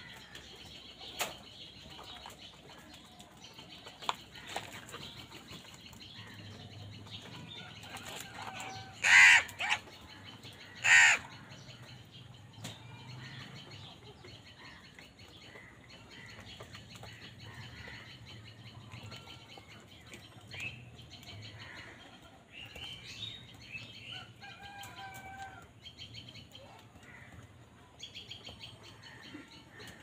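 House crows at a food bowl: two loud harsh caws close together about a third of the way in, quieter calls later on, and occasional wing flaps, over a steady hiss.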